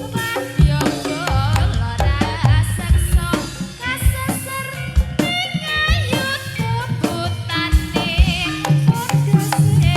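Live Javanese jaranan music: kendang drum strokes and percussion under a high, wavering melody line.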